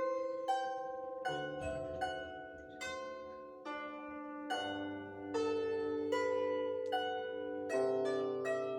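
A solo plucked string instrument playing a slow, gentle piece: single notes and chords sound about once a second, each left ringing as it fades.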